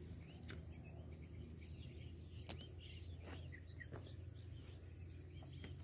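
Quiet outdoor ambience: a steady high-pitched insect drone, with a few faint chirps and occasional small clicks.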